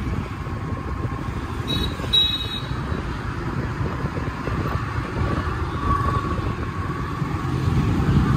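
Street traffic noise: a steady low rumble of vehicles, with a brief high-pitched sound about two seconds in.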